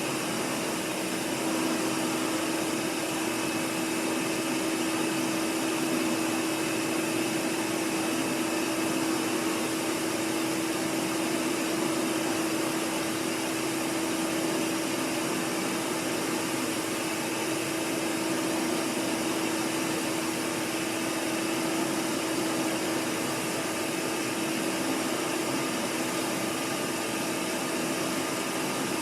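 Vintage Hoover Portable canister vacuum cleaner running steadily: a constant motor hum over the rush of air.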